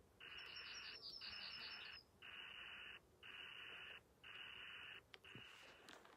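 Faint insect buzzing in even pulses, about one a second, with a short, high, rapid bird trill in the first two seconds. A couple of light footsteps on the dirt trail come near the end.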